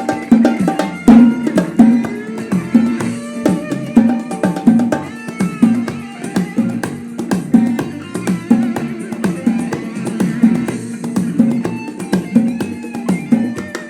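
Instrumental passage of a Gulf (Khaleeji) song: a steady percussion rhythm under a plucked-string melody, with no singing.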